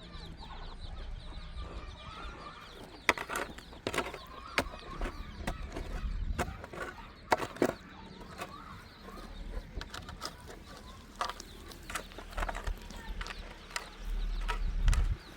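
Chickens clucking, with scattered sharp knocks and taps.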